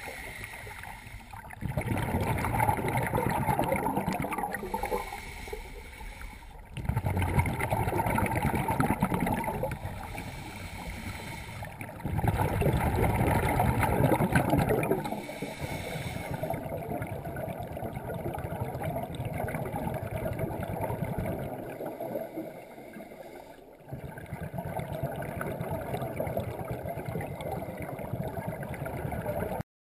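Scuba diver's exhaled bubbles from a regulator, heard underwater: bubbling bursts about three seconds long, one roughly every five seconds, later giving way to a steadier, weaker bubbling rush. The sound cuts off suddenly near the end.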